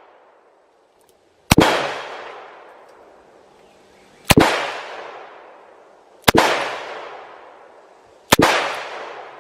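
Taurus .38 revolver fired four times, about two to three seconds apart, each sharp shot followed by a long fading echo.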